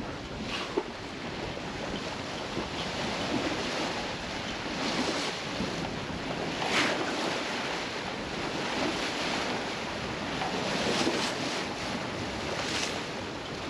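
Wind and water on a sailboat under way in a fresh breeze: a steady rush of waves along the hull with wind buffeting, rising in a few louder surges, the strongest about seven seconds in and again near the end.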